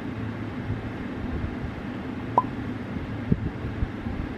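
Steady low background hum of room noise, with a short sharp click about two and a half seconds in and a soft knock just under a second later.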